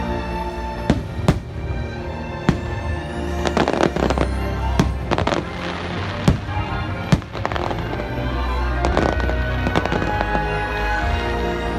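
Aerial firework shells bursting in a string of sharp bangs, some spreading into dense crackling, over music playing throughout.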